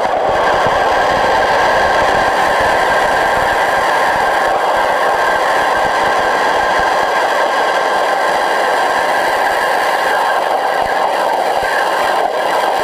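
Pressure washer jet spraying underwater in a swimming pool, a loud steady rushing hiss heard through an underwater camera, with a thin steady tone running through it.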